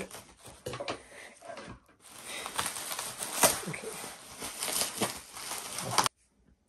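Plastic bubble wrap crinkling and rustling with scattered crackles as it is cut open with scissors and pulled apart by hand. The sound stops abruptly about six seconds in.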